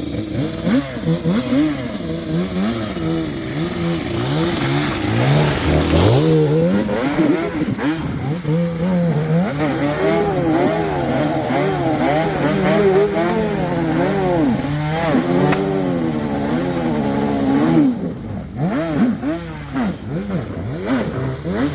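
ATV engine revving up and down over and over as the throttle is worked on and off, with a sharp climb in revs about six seconds in. It drops back near the end to shorter throttle blips.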